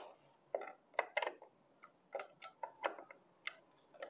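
About a dozen sharp metallic clicks and taps at irregular spacing as a screwdriver works the small screws that hold a printhead in a metal printer carriage.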